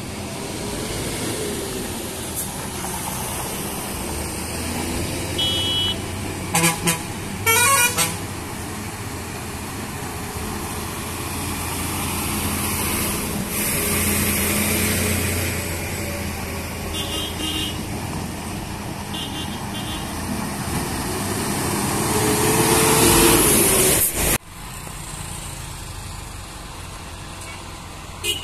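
Heavy lorry diesel engine running and a car passing close on a mountain hairpin, with two loud horn blasts, the second longer, about seven seconds in. The engine noise builds to its loudest and then cuts off abruptly, leaving a quieter steady drone.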